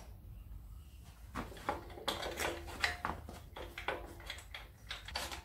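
Irregular metal clinks and scrapes of bolts being started by hand into an air-conditioning compressor's mounting. They begin about a second and a half in, with a few short ringing tones among them.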